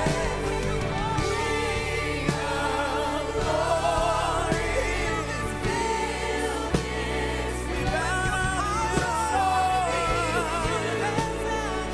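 Live gospel worship song: a woman's lead voice sings out strongly over a group of backing singers and a band with keyboards and a steady drum beat.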